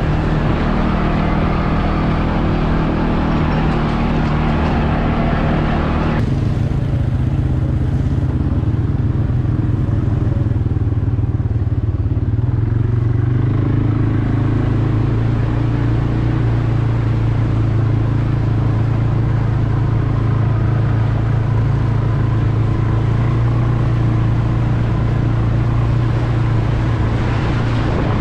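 CFmoto CForce 520 ATV's single-cylinder engine running steadily under way, with a rushing noise over it that cuts off suddenly about six seconds in.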